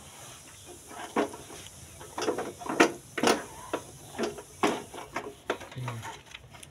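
A cloth rubbing and wiping the metal body of a gas stove: a run of short, irregular scrubbing strokes.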